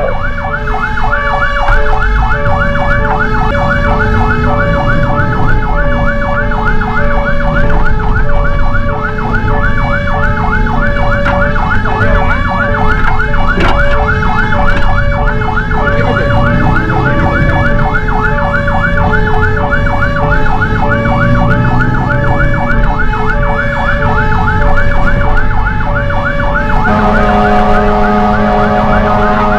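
Fire engine sirens wailing while responding, a slow alternating two-tone over a faster warbling siren, with engine and road rumble underneath. Near the end a steady blaring tone cuts in.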